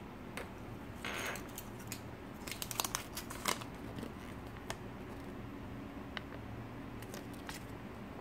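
Small plastic clicks and a brief rustle of handling a Kinder Surprise toy and its wrapping: a short rustle about a second in, a quick cluster of clicks around the middle, then a few scattered clicks.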